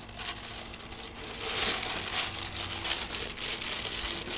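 Parchment paper crinkling and rustling as a freshly baked loaf is lifted out of the Dutch oven by it, getting louder about a second in.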